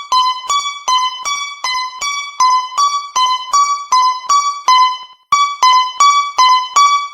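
Japanese railroad crossing warning bell ringing: electronic struck tones alternating between two close pitches, about two and a half strikes a second. It breaks off briefly a little past five seconds in, then resumes.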